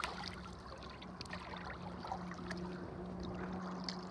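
Shallow water trickling and splashing softly around the wader's hands and feet, with scattered small ticks, over a steady low hum from a boat motor running.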